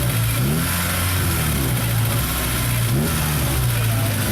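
Idling K24 four-cylinder engine of a K-swapped 1996 Honda Accord, blipped a few times so the pitch rises briefly and falls back to idle.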